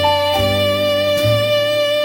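Slow jazz music: a saxophone holds one long note over bass notes that change about twice.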